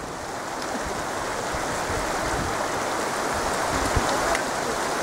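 A mountain stream rushing steadily, growing slightly louder toward the end.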